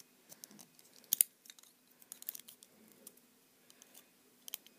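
Small plastic parts and figures being handled: scattered light clicks and taps with faint crinkling, the loudest pair of clicks about a second in.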